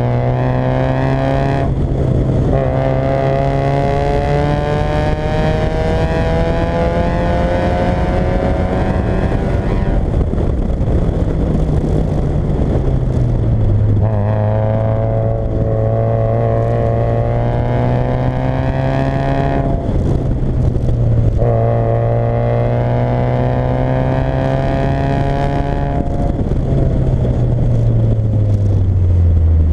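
Fiat Coupé 1.8 16v four-cylinder engine pulling hard, its pitch climbing steadily in each gear and dropping at each quick upshift, with two stretches of slowing where the pitch falls.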